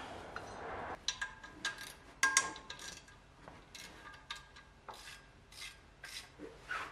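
Metal tools and parts clinking and tapping against each other as a wrench works the bolts of a BMW M20 engine's crankshaft pulley. The clinks come irregularly, some with a short metallic ring, and the loudest comes about two seconds in after a brief scraping rub.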